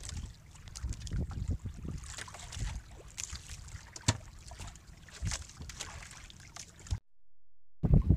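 Water lapping against a small outrigger boat's hull, with wind rumbling on the microphone and a few scattered knocks; the sound cuts out completely for under a second near the end.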